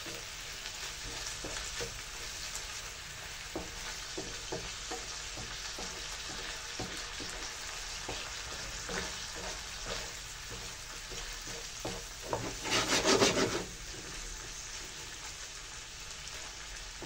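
Lardons and sliced onions sizzling in a nonstick frying pan, stirred with a wooden spatula that scrapes and taps against the pan. A brief louder rapid rattle about two-thirds of the way through.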